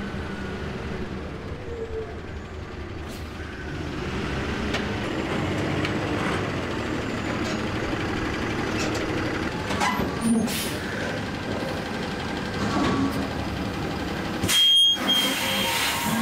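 Diesel engine of a Kalmar terminal tractor running steadily as it moves a semi-trailer onto a rail wagon, with a few metallic clicks about ten seconds in. Near the end there is one brief, loud burst of noise.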